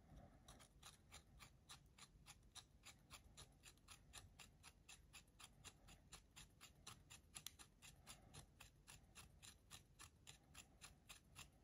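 Hand pin vise drill with a twist bit being turned by the fingers through thin 0.2 mm aluminium sheet: a faint, steady run of small scraping clicks at about five a second as the bit cuts. The bit is almost through the sheet.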